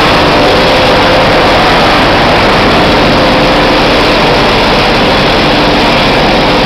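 Furnace-and-cyclone processing plant running: a loud, steady roar of blower fans and motors with a faint steady hum in it.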